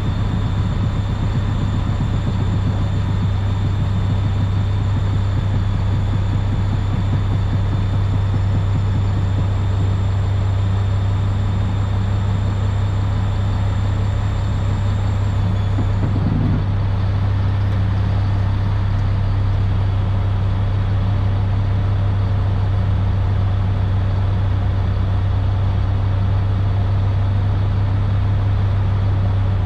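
Diesel engine of a 2007 Sterling L7500 Vac-Con vacuum truck running steadily as a deep, even drone, with a faint high whine over it that stops about halfway through.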